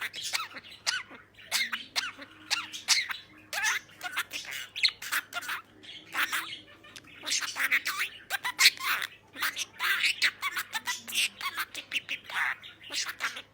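Pet budgerigar chattering: a continuous run of quick chirps, squawks and warbled notes.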